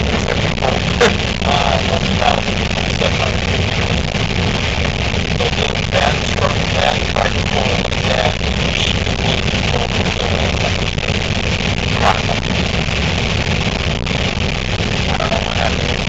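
Case IH 8120 combine running under load while harvesting corn, heard from inside the cab: a steady diesel engine and threshing drone, with a few short knocks and clatters from the machine at work.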